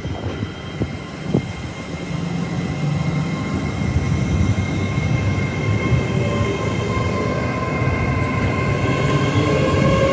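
A train approaching and growing steadily louder, with a steady high whine and a lower tone joining near the end.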